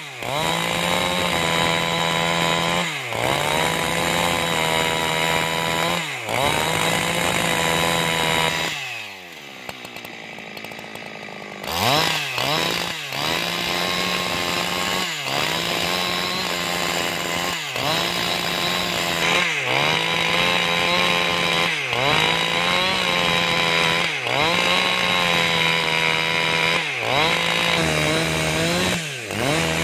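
Husqvarna 372XP two-stroke chainsaw at full throttle, ripping a rambutan log lengthwise along the grain. Its pitch dips briefly and picks up again every second or two. About nine seconds in the throttle is let off and the pitch falls, then it revs back up into the cut near the twelve-second mark.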